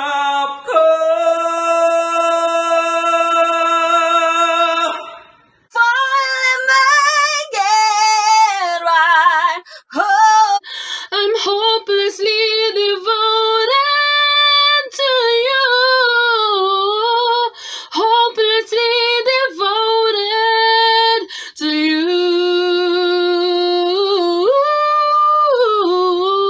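Solo singing without accompaniment. A man holds one long high note until about five seconds in. After a short break, a woman sings a flowing ballad line with vibrato and slides between notes.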